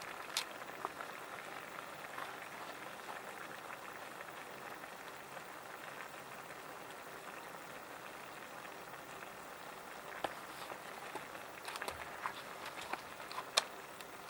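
Steady hiss of a pellet fire burning in a small wood-gas camp stove under a lidded pot of stew coming to the boil, with a few sharp crackles near the end.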